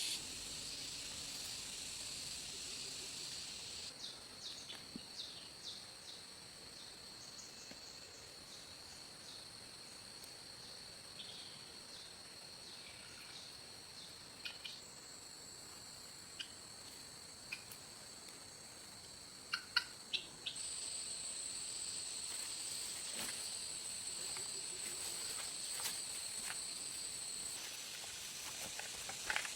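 Steady high-pitched insect drone of the forest, with scattered light clicks and snaps; a short cluster of sharper clicks about twenty seconds in is the loudest part.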